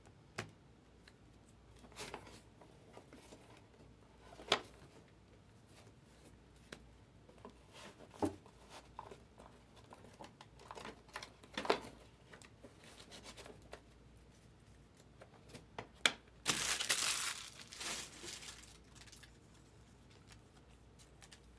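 Torn foil wrappers from trading-card packs crinkling, with scattered short crackles and clicks. About two-thirds of the way in comes a louder, dense crumpling rustle lasting about two seconds as the wrappers are scooped up.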